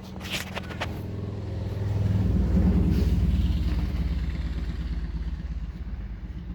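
Motor vehicle engine running nearby, its hum growing louder about two seconds in and then slowly fading, with a few light clicks in the first second.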